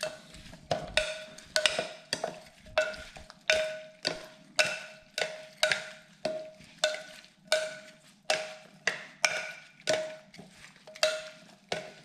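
A spoon stirring tomato dipping sauce in a bowl, knocking against the bowl in a steady rhythm of ringing clinks, a little under two a second.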